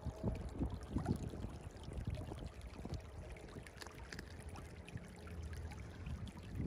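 Shallow creek water trickling and splashing over rocks and gravel, a steady, irregular babble.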